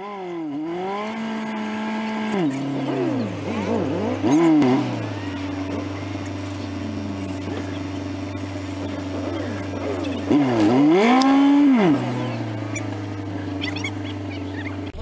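Nissan D21 Hardbody pickup's engine idling, revved at the start and settling to idle about two and a half seconds in. It is blipped a few times around four seconds in and held up in revs for about a second and a half near eleven seconds.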